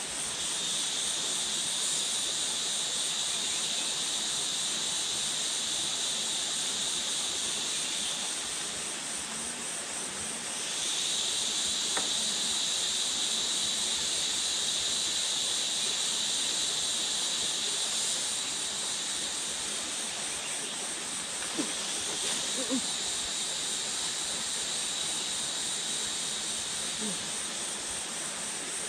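Forest insects buzzing in a steady high-pitched chorus. It fades away for a couple of seconds about a third of the way in, then comes back. A few faint clicks are heard later on.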